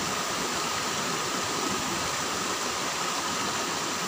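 Steady rush of stream water flowing over rocks.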